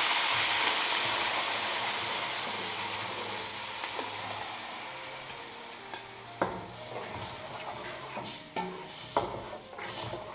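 Minced onion frying in hot oil in a metal pot, with a sizzle that fades steadily. From about six seconds in, a spoon knocks and scrapes against the pot as the onion is stirred.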